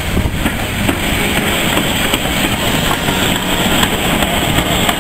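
GER Class Y14 0-6-0 steam locomotive passing at close range: a steady, loud, heavy rumble of its wheels and motion on the rails, with a few light clanks near the end.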